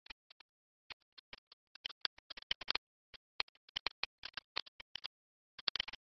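Pen-tablet stylus tapping and scratching on the drawing surface in quick, irregular short strokes, busiest in the middle and near the end, with dead quiet between them.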